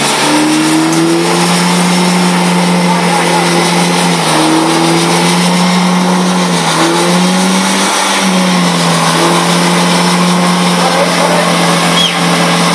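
GMC compact pickup's engine revving hard and held at high revs, dipping briefly a few times, as the truck spins its wheels in flooded mud: stuck, digging itself deeper.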